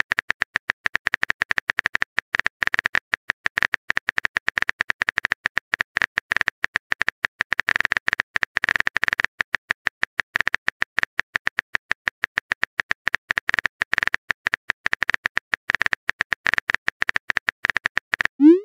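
Rapid, irregular keystroke clicks of a phone-keyboard typing sound effect, with a few brief pauses, as a text message is typed out. Near the end a short rising whoosh marks the message being sent.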